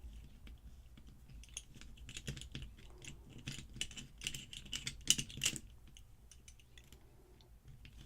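Rapid small metallic clicks and scrapes of a small hand tool working against a lock's body and internals as the picked lock is taken apart, coming in clusters that are busiest about four to five and a half seconds in.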